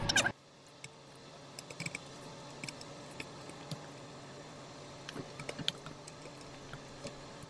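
Faint, scattered, irregular clicks and taps of wooden chopsticks prodding chicken pieces in a hot air fryer basket, over a low steady hiss. It opens with a brief loud clatter that cuts off abruptly.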